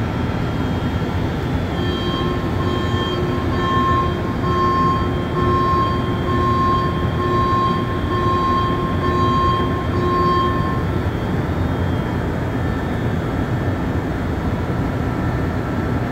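Rubber-tyred Montreal Metro train rumbling steadily through the station. From about two seconds in, an electronic beep repeats roughly once a second for about nine seconds, then stops.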